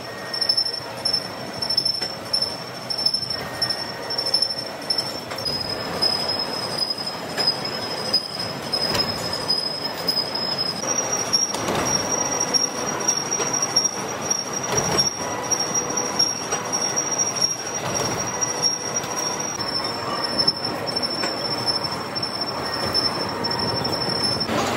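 Machine tool cutting metal while a large gear is being machined: a steady, high-pitched squeal over a rough cutting noise. The squeal's pitch steps down about five seconds in, up near the middle, and down again late on.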